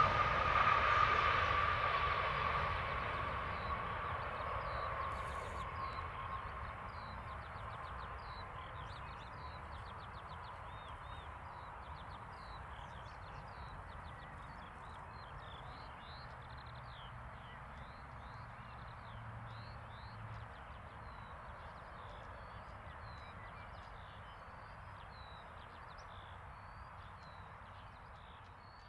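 Gulfstream G650ER's Rolls-Royce BR725 turbofans running during the landing rollout: a jet whine that falls slightly in pitch and fades away over the first several seconds. Birds chirp repeatedly from about four seconds in.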